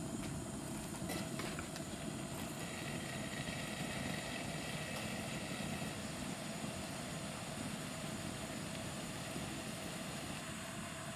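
Cane sugar syrup bubbling steadily as it comes to the boil in a stainless steel saucepan over a gas flame, with a couple of light clicks about a second in.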